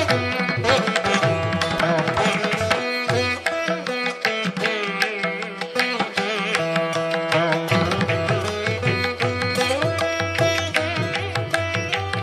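Background music: an Indian classical instrumental piece, a plucked string melody with bending notes over a steady drone, with regular drum strokes.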